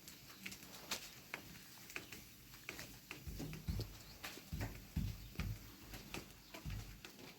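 Irregular small clicks and knocks, with dull low thumps from about three seconds in.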